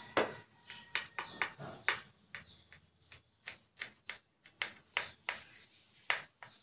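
Small kitchen knife cutting through a white-bread sandwich, its blade clicking and scraping against the ceramic plate beneath in short irregular strokes, about three a second.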